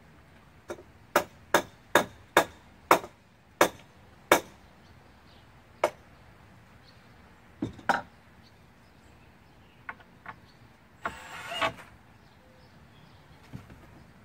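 About eight sharp strikes on lumber, roughly two a second, from a metal tool being used as a hammer, followed by a few scattered knocks. A short whirring burst from a cordless drill comes about 11 seconds in.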